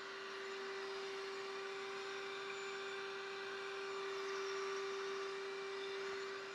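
Shop vacuum running, a steady whine over rushing air, as its brush nozzle sucks up drilling dust from the drill press table.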